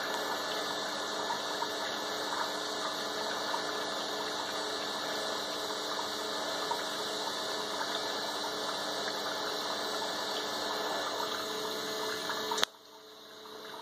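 TIG welding arc burning steadily, an even hiss with faint steady tones. Near the end the arc is broken with a sharp click, and the sound drops abruptly to a much fainter hum.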